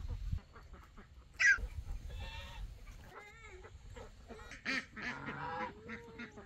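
Farm poultry calling: several separate calls, the loudest about a second and a half in, with a quick run of short repeated calls around the middle.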